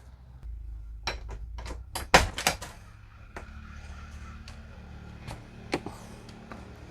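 A quick run of sharp clicks and knocks from an RV's door and latches being worked, then a faint steady hum with a few scattered clicks.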